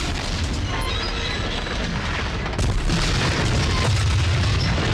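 Deep booming rumble with hiss over music, like a dramatic explosion or disaster sound effect. It cuts off suddenly at the end.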